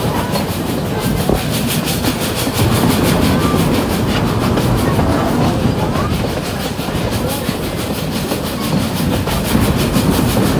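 Heritage passenger train running along the track, heard from an open carriage window: steady rumble and clatter of wheels on rail, with an even beat of about three a second.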